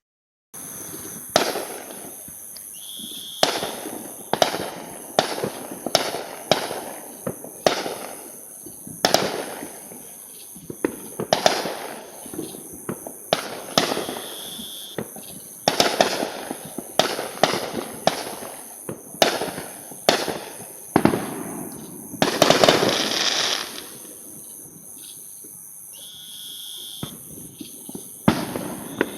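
Fireworks going off in a rapid series of sharp bangs, one or two a second, each with a rolling echo, and a longer crackling burst about two-thirds of the way through.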